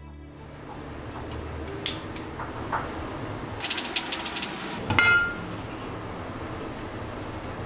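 Kitchen cookware and utensils knocking and clattering over a steady hiss, with a few sharp knocks and one loud, ringing clink about five seconds in.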